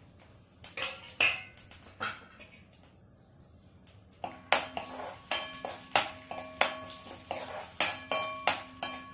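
Metal spoon striking and scraping inside a small steel bowl: a few light clicks, then, from about four seconds in, a run of sharp clinks, each left ringing, about two a second.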